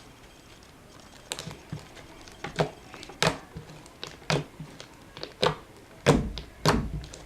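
Slime being squished and worked by hand, making a series of irregular sharp clicks and pops, louder near the end.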